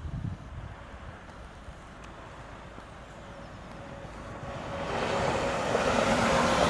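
Stadler FLIRT3 electric multiple unit approaching and passing at speed. Its sound swells from about four and a half seconds in to a loud rush of wheels on rail, with a steady tone running through it.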